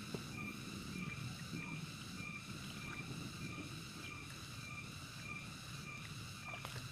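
A steady chorus of calling animals, one call repeating about every two-thirds of a second, with soft sloshing of water and mud from hands working in a shallow muddy ditch.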